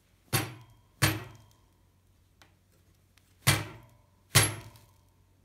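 Four sharp metal-on-metal blows, in two pairs, each with a brief ring: a stuck part of a BMX bottom bracket being knocked to get it off.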